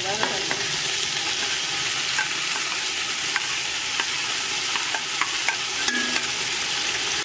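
Sliced onions frying in hot oil in a steel cooking pot, a steady sizzle, as ginger-garlic paste, tomato and green chillies are tipped in for the tadka. Scattered sharp clicks run through it.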